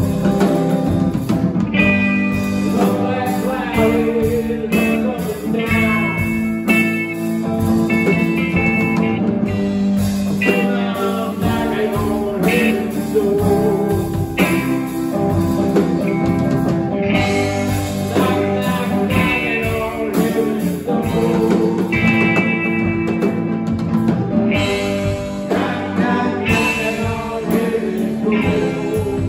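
Live blues-rock band playing: two electric guitars through amplifiers over a drum kit, with one guitar playing wavering lead lines.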